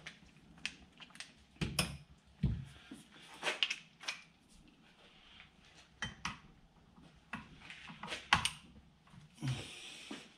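Irregular light clicks and knocks of a wrench and metal engine parts being handled during work on the flywheel bolts, a dozen or so scattered strikes with short gaps between them.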